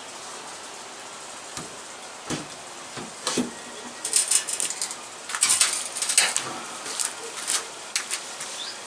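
Wooden beehive parts being handled: an irregular run of sharp knocks, clicks and rasping scrapes of wood on wood, starting about a second and a half in and loudest in the middle, over a steady faint hiss.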